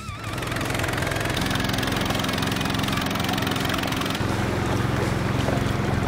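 A small boat's engine running steadily under way, with water rushing along the hull; it comes in a moment in as the music stops.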